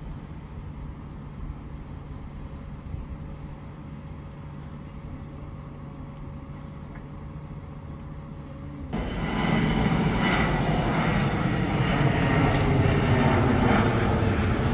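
Electric multiple-unit train standing at a platform with a steady low hum. About nine seconds in, the sound cuts abruptly to a twin-engined jet airliner climbing overhead, its engines much louder with a pitch that falls slowly.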